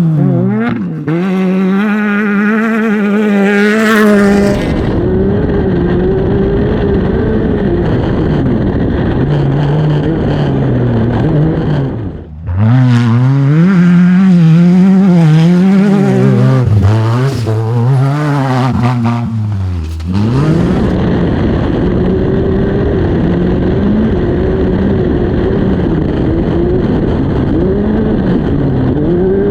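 Off-road race car engine running hard, its pitch rising and falling constantly as the throttle opens and closes. The engine sound changes abruptly about four, twelve and twenty seconds in.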